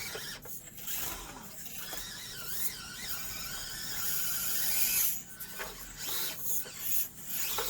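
Small electric motor and gear drivetrain of an Axial SCX24 1/24-scale RC crawler whining as it drives, the pitch wavering up and down with the throttle. It grows louder until about five seconds in, stops briefly, then comes back more faintly.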